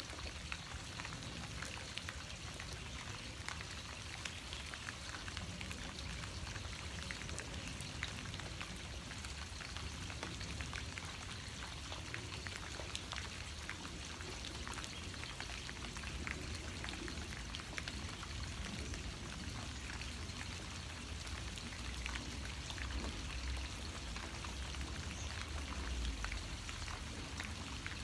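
Steady rain falling, with many separate drops ticking on nearby surfaces, and a low rumble that grows stronger near the end.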